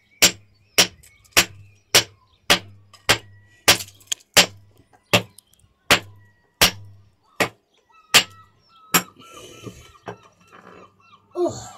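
Hammer striking a fossil-bearing rock again and again to crack it open: some fourteen sharp blows, a little under two a second, that stop about nine seconds in.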